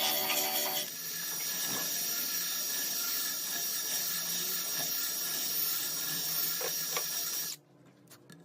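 Power drill running steadily with a high whine, stopping suddenly near the end.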